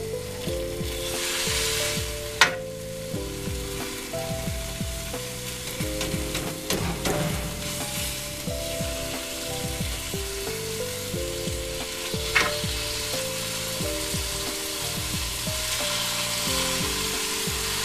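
Ground beef frying in a pan with a steady sizzle while a plastic meat chopper breaks it up and stirs it. Sharp knocks of the chopper against the pan come about two and a half seconds in and again about twelve seconds in.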